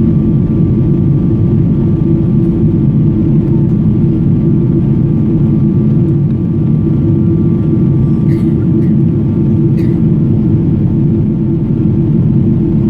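Steady cabin roar of a Boeing 777-200ER airliner heard from a window seat, engine and airflow noise with a low hum and faint steady tones above it. A couple of faint light clicks come in about two-thirds of the way through.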